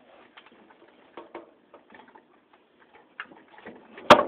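Scattered light clicks and ticks of ceiling-fan parts and hand tools being handled, with one sharper knock about four seconds in.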